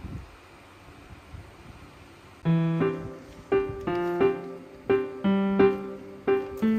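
Faint room tone, then background piano music starting about two and a half seconds in: separate notes and low bass notes struck at a steady, unhurried pace, each ringing out and fading.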